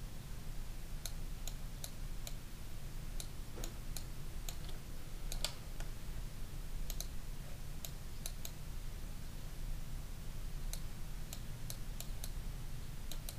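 Irregular sharp clicks of a computer mouse and keyboard in loose clusters, with a pause of about two seconds past the middle, over a steady low electrical hum.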